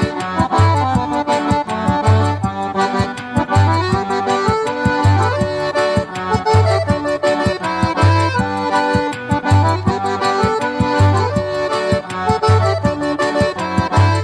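Instrumental music led by an accordion with a steady beat: a deep bass note about every second and a half, with quick percussion strokes in between.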